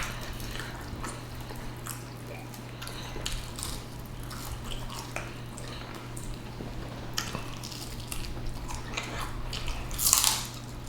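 Close-miked biting and chewing of lemon pepper chicken wings: scattered short crunches and mouth sounds, with a louder burst about ten seconds in, over a steady low hum.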